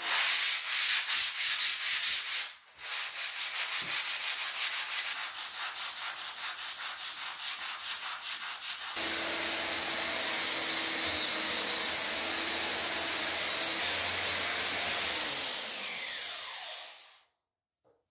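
Concrete floor being sanded by hand in quick, even rubbing strokes. About nine seconds in, an electric angle grinder with a sanding disc takes over, running steadily against the concrete, then winds down and stops near the end. The sanding takes the curing agent off the slab and scratches it up for a better bond with new concrete.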